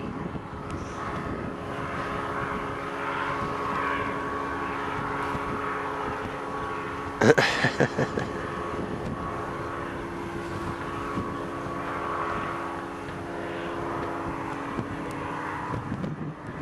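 Powered parachute engine and propeller droning steadily. About seven seconds in, a short, sharp clatter of knocks stands out above it.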